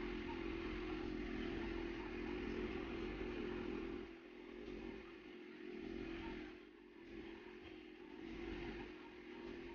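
Background motor-vehicle traffic with a steady hum, steady for about four seconds, then fading and swelling again a few times as vehicles pass.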